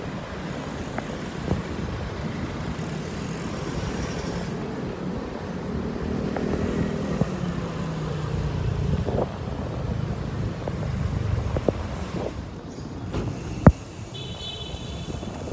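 Wind rush and city traffic noise on a phone microphone during a bicycle ride, with a motorcycle engine passing close by in the middle. There is a sharp click a couple of seconds before the end.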